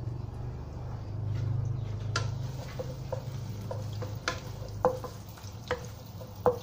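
Wooden spatula stirring dried shrimp frying in oil in a nonstick wok, with a string of sharp taps against the pan from about two seconds in. The shrimp is being fried until crisp. A low hum sounds in the first couple of seconds.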